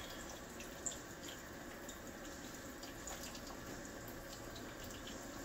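Faint steady hiss with a few light ticks.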